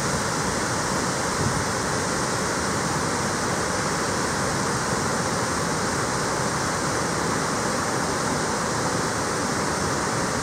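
A tall waterfall plunging into a pool at its base: a steady, unbroken rush of falling water.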